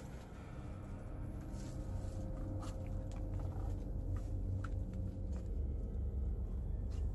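Steady low rumble on the microphone, with a few faint scattered clicks and knocks.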